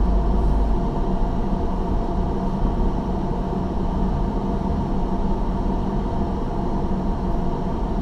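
Car engine and road noise heard from inside the cabin while driving slowly: a steady low hum that does not change.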